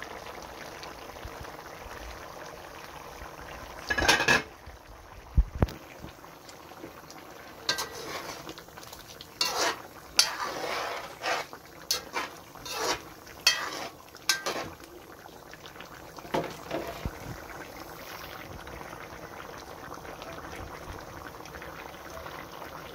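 Pot of curry chicken stew with potatoes and carrots simmering, its thick sauce bubbling steadily. Between about 4 and 15 seconds in, a utensil clinks and scrapes against the pot in a string of short, louder knocks.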